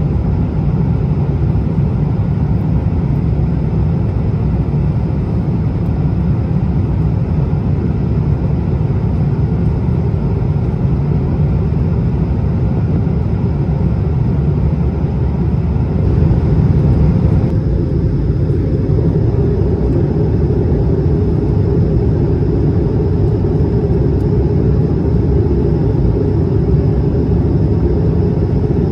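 Jet airliner cabin noise from a window seat over the wing: a steady, loud low rumble of the engines and airflow during the descent toward landing. About two-thirds of the way through, the higher hiss drops a little and the low rumble swells slightly.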